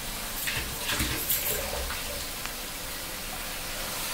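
Raw mutton pieces tipped into a hot pan of frying onion and tomato masala: a steady wet sizzling hiss, with a few knocks of pieces landing in the first second and a half.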